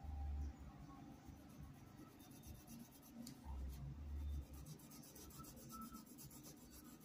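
Faint scratchy rubbing of a paintbrush being dragged back and forth over a cloth dish towel as paint is worked into the fabric. Two dull low bumps come through, one at the start and one about halfway.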